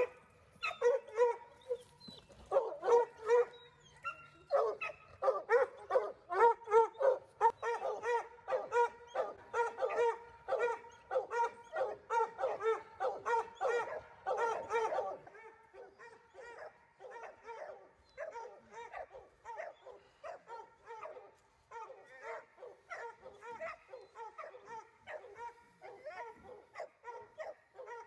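Hog-hunting dogs barking rapidly and without a break, about two or three barks a second. The barking drops noticeably quieter about halfway through.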